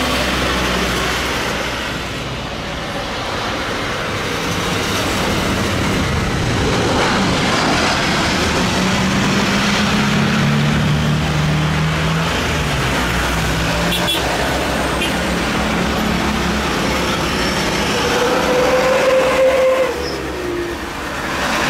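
Airbus A320's twin jet engines running as the airliner touches down and rolls out along the runway. The noise swells for several seconds after touchdown, with a low hum underneath.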